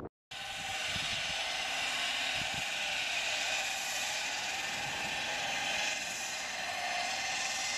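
Steady rushing outdoor noise of a city street, the even hum of traffic and distant engines, with no distinct events. The sound cuts out completely for a moment right at the start.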